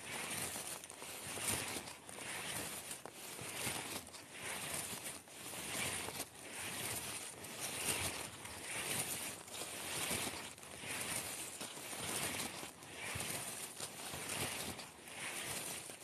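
Wind rushing through pine trees and over the microphone, swelling and fading every second or two.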